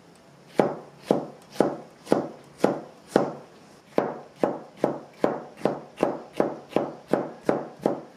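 Chef's knife slicing bell pepper into strips on a plastic cutting board, each cut ending in a sharp knock on the board. The cuts come about twice a second, break off briefly a little after three seconds in, then resume in a steadier, slightly faster run.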